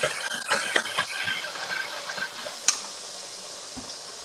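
Food sizzling and frying in pans on a stovetop, a steady hiss broken by a few clicks, the sharpest about two and a half seconds in.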